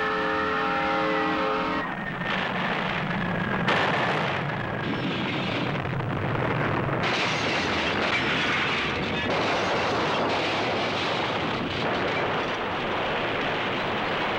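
A freight locomotive's multi-trumpet air horn sounds several tones at once and cuts off about two seconds in. A loud, dense roar of tornado wind takes over, growing fuller about four and seven seconds in.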